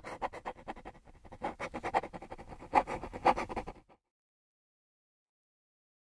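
Rapid scratching strokes of a brush across paper, with two louder sweeps near the end; the scratching cuts off suddenly about four seconds in.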